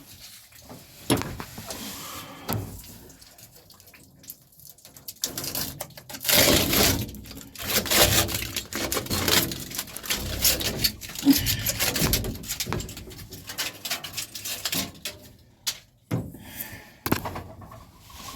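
Irregular knocking, rattling and scraping from the vent flap being worked into a cramped spot on a swamp cooler, with a busy stretch of clatter through the middle.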